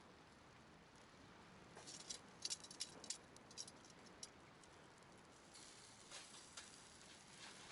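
A quick run of sharp clicks and crackles about two seconds in, lasting roughly two seconds, then a few fainter ones near the end, over a faint steady hiss.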